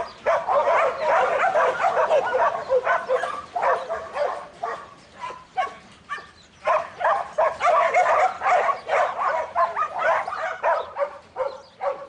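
Dogs barking and yipping rapidly and almost without pause, the calls crowding over one another, with a short lull about six seconds in.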